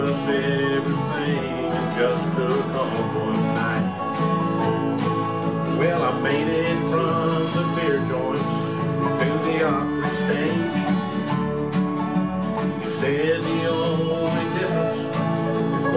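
A man singing a slow country song while strumming a steel-string acoustic guitar.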